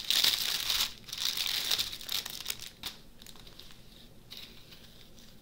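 Clear plastic wrapping crinkling and rustling as a bundle of small bags of diamond-painting drills is unwrapped. It is loud for the first three seconds, then dies down to faint scattered rustles and clicks.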